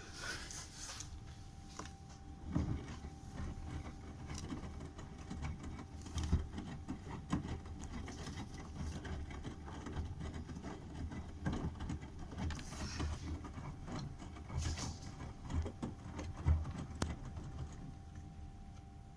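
Bosch washing machine running a 60 °C coloured-wash programme, drum turning with irregular low thuds and rumbling and a faint steady hum throughout.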